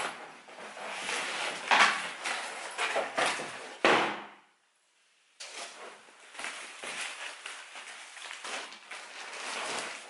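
Packing tape being ripped off a cardboard box in several loud tearing strokes. After a short break, rustling and crinkling as cushions and their packaging are pulled out of the box.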